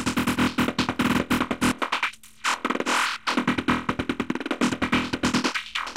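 Serum software synthesizer playing a fast, stuttering psytrance-style sequence of short repeating notes. Its high-pass filter is being turned up, so the bass drops away about two seconds in.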